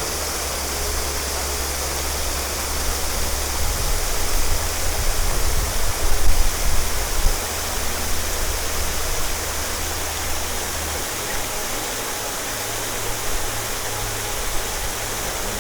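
Steady rush of falling water over a low hum that changes about eleven seconds in.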